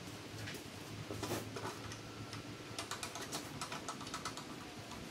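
A quick run of light clicks and rattles as a metal stand tube and its parts are picked up and handled, with a faint thin metallic ring under them.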